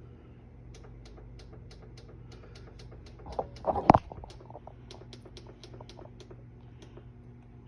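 A run of light clicks, about two to three a second, over a steady low electrical hum, with a louder clatter about four seconds in.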